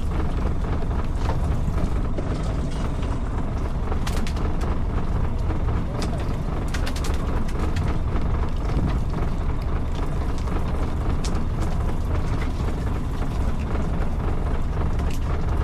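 Steady low rumble of a fishing boat's engine running at idle, with a few faint clicks about four and seven seconds in.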